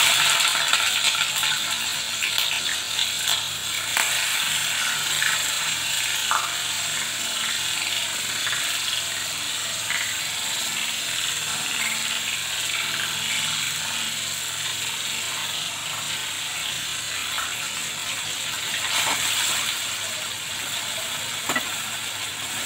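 Sliced red onions sizzling in hot oil in a wok: a loud, steady hiss that eases slowly, with a few light scrapes and taps of the spatula against the pan.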